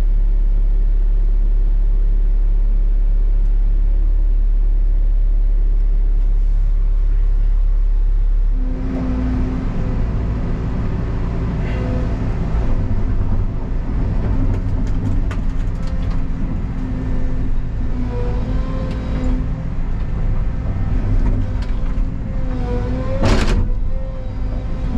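Excavator's diesel engine running steadily, heard from inside the cab. About nine seconds in the note changes to a busier, wavering working sound as the machine works, with a brief sharp crack near the end.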